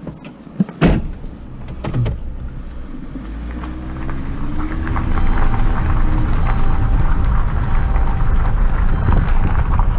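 A few sharp knocks, then a vehicle engine revving up as the vehicle pulls away, its pitch rising, and settling into a steady loud drive with low road rumble.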